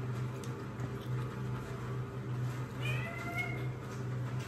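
A domestic cat meowing once, a single rising-then-falling call about three seconds in, over a steady low hum.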